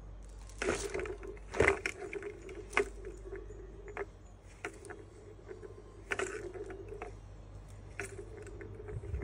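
Plastic balls rolling around a tiered cat track toy, a steady rolling rumble that stops and starts, broken by sharp plastic clicks and knocks as a kitten's paw bats at them.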